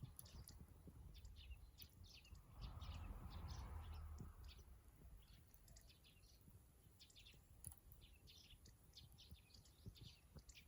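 Faint chirping of small birds, short calls repeating throughout. A soft rushing noise swells and fades from a little after two seconds to about four seconds in.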